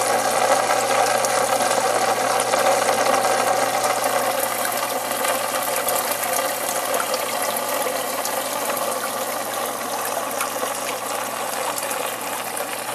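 Aquarium pump and filter running steadily, water splashing and churning over a low, even hum.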